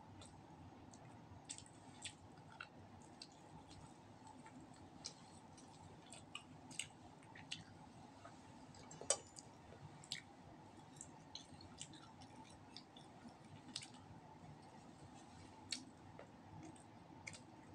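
Faint close-up eating sounds of roast duck being chewed and pulled apart by hand: scattered small wet clicks and smacks, the sharpest about nine seconds in.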